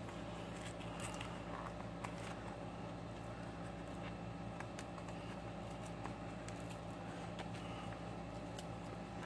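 Faint scattered clicks and crinkles of a plastic blister pack being picked at by fingers to free the marker, over a steady low hum.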